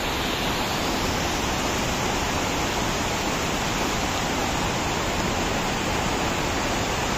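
River rapids: fast water rushing and churning over rocks, a steady unbroken roar of water.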